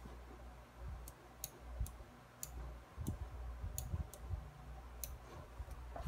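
Pencil tip ticking against sketchbook paper in short, light strokes: several sharp, irregularly spaced ticks, with soft low bumps of the hand resting and moving on the page.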